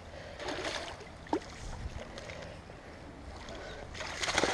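Water splashing and sloshing at the river's edge as a hooked sucker is played in close to the bank, in irregular surges.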